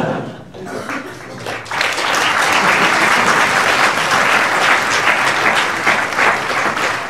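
Theatre audience applauding, the clapping swelling to full strength about two seconds in and then holding steady.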